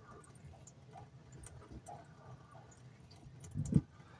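Thin stream of water from the LifeStraw Family filter's red tap trickling faintly into a stainless steel sink, with small ticks, as the first water is flushed through and thrown away. A low thump sounds about three and a half seconds in.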